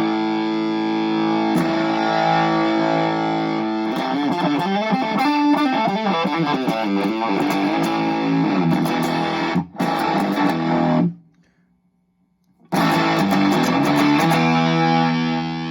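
Electric guitar (Strat bridge humbucker) through a Fuzz Face-style fuzz pedal at full fuzz, into an Egnater Tweaker 15 amp, while the pedal's bias is adjusted. A held distorted chord gives way to busier shifting notes, then the sound stops for about a second and a half before another held chord rings out.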